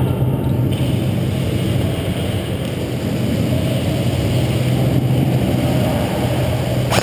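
Steady low mechanical hum and rumble, unchanging throughout, with a single sharp snap at the very end.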